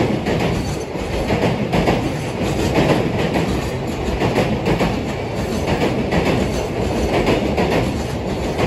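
Train passing at speed, its wheels clattering rhythmically over the rail joints.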